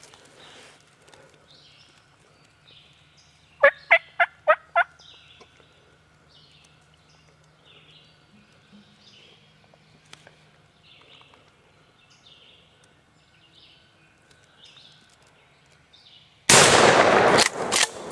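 A wild turkey gobbles once about four seconds in: a quick rattle of about five notes. Small birds chirp faintly throughout. Near the end a shotgun blast, the loudest sound, stays loud for about a second and a half as it echoes.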